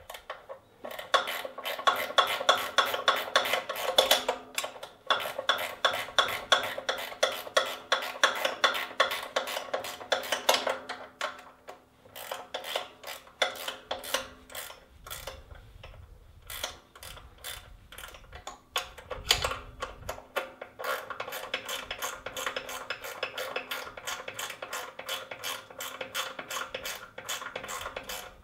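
Ratchet wrench clicking rapidly in long runs with a few short pauses, running in the bolts that mount a small engine to a rototiller chassis.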